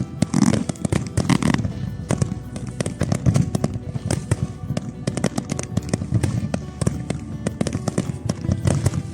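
Fireworks going off in rapid succession: a dense run of bangs and crackles, several each second, with music playing under them.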